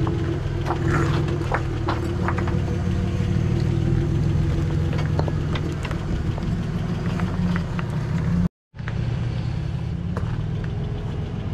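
Lifted Toyota pickup's engine running steadily at low revs as it crawls over big rocks on oversized tyres, with scattered clicks and knocks of tyres and stones on rock. The sound cuts out for a moment about two-thirds of the way through.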